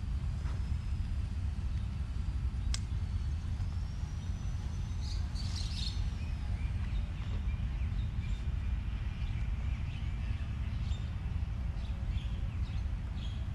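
Rustling and clicks of backpack straps and buckles being handled on a bike's rear rack, with a sharp click about three seconds in and a burst of rustling midway. Underneath is a steady low rumble, with faint bird chirps.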